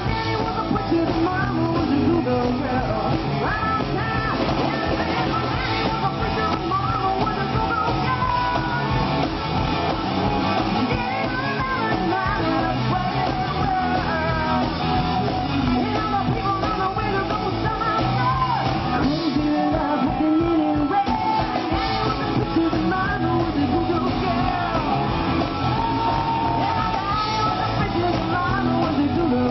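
Live rock-and-roll band playing loudly: electric guitar and drum kit, with singing over it.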